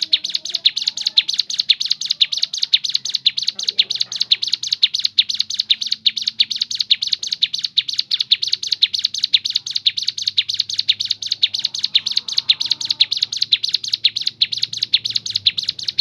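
Ciblek gunung (a mountain prinia) singing a long, unbroken rapid run of sharp high chirps, several a second, at an even pace.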